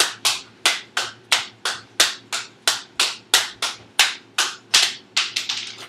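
Sharp hand claps in a steady rhythm, about three a second, coming a little faster and softer near the end.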